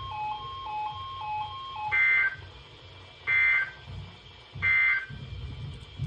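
Emergency Alert System end-of-message data tones: three short, harsh, buzzing bursts about a second apart that close an alert. They come after a soft two-note alternating beep.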